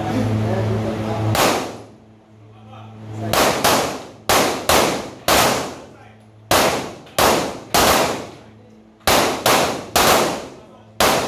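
Volley of about fifteen pistol shots at uneven intervals from several shooters firing Glock 17 9mm pistols, each crack trailing a long echo off the indoor range's walls. The first shot comes about a second in, then they follow in quick ragged groups.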